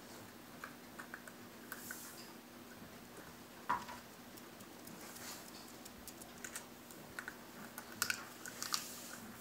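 A small dog gnawing at a walnut in its shell: scattered sharp clicks of teeth on the hard shell, with a louder click about four seconds in and a quick cluster of clicks near the end.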